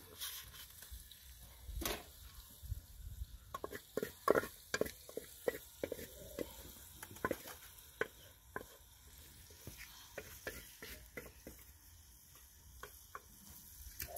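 Wooden spoon scraping and knocking against a metal cooking pot while cooked greens are scraped out and pressed into a plastic sieve to drain. Irregular short scrapes and clicks.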